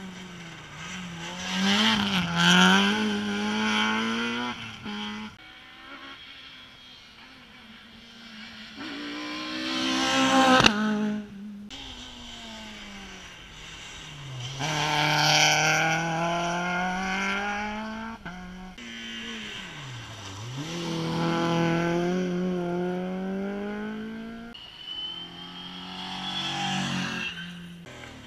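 Rally car engines revving hard on an asphalt stage, pitch climbing and dropping through gear changes and braking in several loud swells, with some tyre squeal. A single sharp bang cuts in about ten and a half seconds in.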